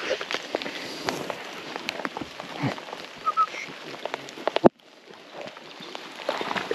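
Footsteps pushing through dry scrub and leaf litter: an irregular run of crackles and twig snaps, with one sharp snap about four and a half seconds in.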